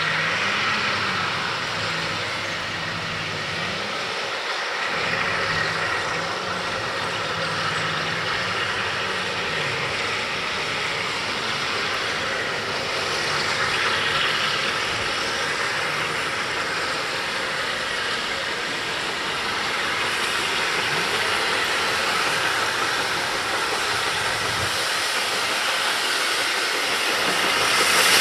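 Steam locomotive standing in steam, hissing steadily, with a faint low wavering hum through the first ten seconds.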